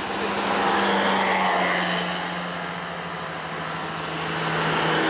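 A UTV's engine running steadily at low revs as it creeps along loading ramps on a pickup truck, with road vehicles swelling past twice, about a second in and again near the end.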